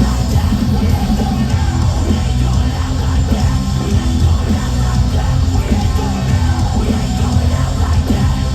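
Heavy rock band playing live at full volume, with heavy bass and drums and shouted vocals.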